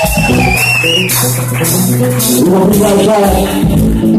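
Live blues band playing: electric guitars over a steady bass line and drums with cymbals, and a high note bending up and down in pitch in the first second.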